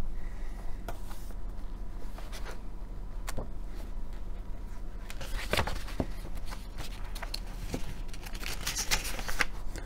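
Paper pages of a magazine being turned and handled: scattered light rustles and clicks, busiest from about halfway through, over a steady low hum.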